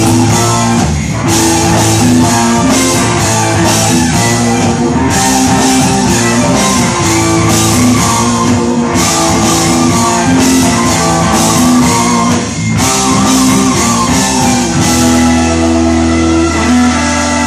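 Live rock band playing: electric guitars, bass and a drum kit with cymbal crashes. Near the end the drums drop out and the band lets held notes ring.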